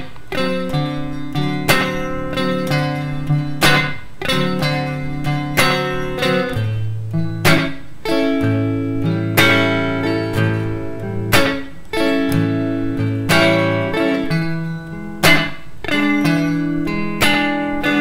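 Guitar strumming a 12-bar blues in A on dominant seventh chords (A7, D7, E7), with strong strokes every second or two and the chord changing every few seconds.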